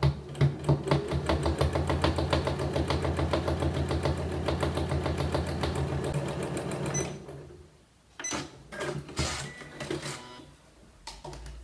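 Janome Memory Craft 9900 computerised sewing machine sewing a straight quilting stitch at a steady speed, the needle going in a rapid, even rhythm, and stopping about seven seconds in. A few light knocks and rustles follow as the quilted fabric is moved.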